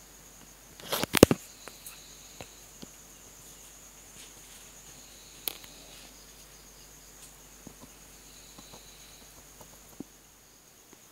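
A cricket's steady high trill, with a brief burst of loud clattering knocks about a second in and a single sharp click a few seconds later.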